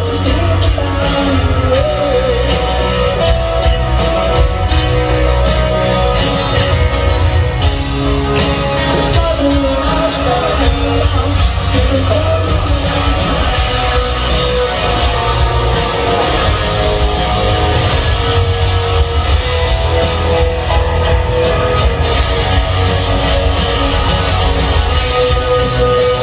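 Live rock band playing a piano ballad: piano and full band with a male lead vocal, heard from far back in a stadium.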